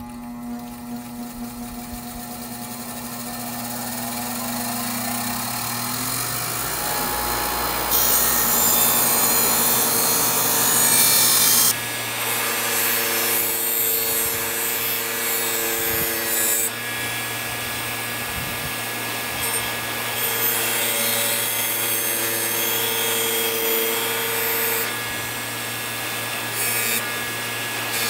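Small electric power tool running steadily, with a hum under a harsh rasping as its spinning abrasive works against the restored shovel. The pitch and loudness shift several times, and it is loudest about a third of the way in.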